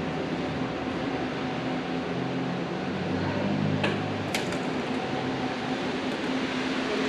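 Steady mechanical hum and air noise of a station ticket hall, with a few low held tones, and two sharp clicks about four seconds in.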